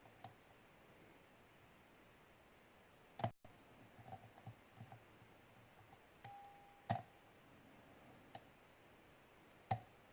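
Faint clicks and ticks of a hook pick working the pin stacks of a Syneco padlock under tension, with three sharper clicks spread through. The picker, feeling pins drop whenever he eases the tension, suspects he is picking in the wrong binding order.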